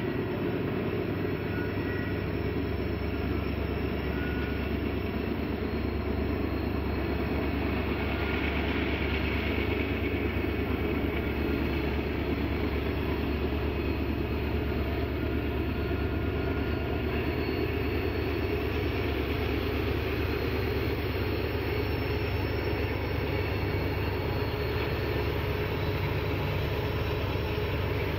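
Two diesel locomotives hauling a loaded oil train slowly upgrade, their engines working under load with a steady low rumble.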